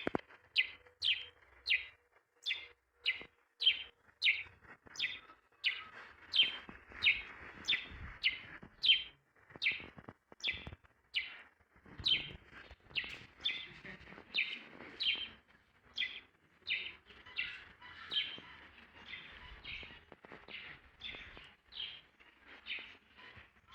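A bird calling over and over: a short, high note that drops in pitch, repeated about twice a second.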